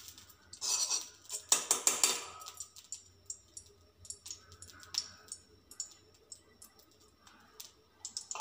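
Metal spoon scraping and tapping against a metal kadai (wok) as ghee is spooned into it. There are two spells of scraping about a second apart near the start, then scattered light clicks.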